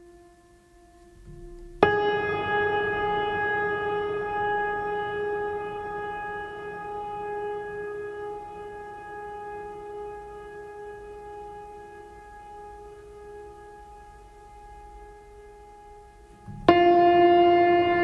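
Background music: a long held instrumental note that starts sharply about two seconds in and slowly fades, then a different held note starts near the end.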